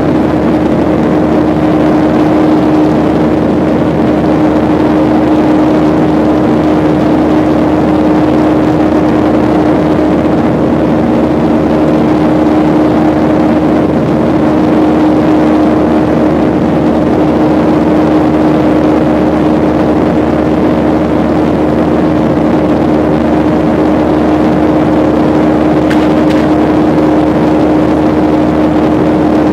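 Steady drone of a jet airliner's engines and rushing air heard inside the cabin, with one constant hum over it and a faint click near the end.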